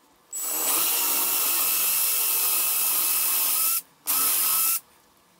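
Cordless drill boring a hole into the plywood base of a weight-bench pad. It runs steadily for about three and a half seconds, stops, then runs again briefly.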